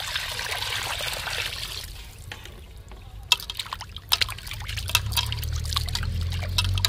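Water poured from a vessel onto small fish in a metal kadhai, rushing for about two seconds, then hands sloshing and rubbing the fish in the water with many small splashes: the fish being given a final rinse.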